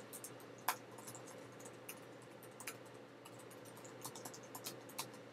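Computer keyboard typing, faint and irregular: a scatter of single key clicks, with a louder keystroke now and then.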